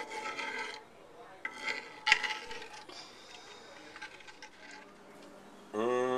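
A metal spoon stirs thick gravy in a cast-iron skillet, scraping and clinking against the pan, with one sharp clank about two seconds in. A short steady hum starts near the end.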